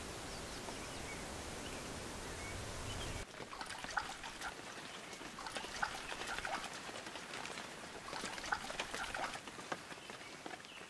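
A steady hiss for about three seconds, then, after a sudden change, an American robin bathing in shallow lake water: a run of quick, irregular splashes as it dips and flutters its wings.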